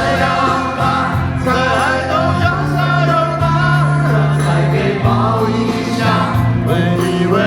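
A song with singing over a band, with long held bass notes under the voices.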